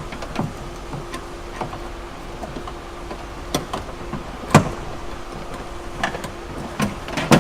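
Scattered clicks and knocks of hands and tools working on the lock linkage inside a 2008 Lexus GX470's door, with one sharp knock about four and a half seconds in and another near the end.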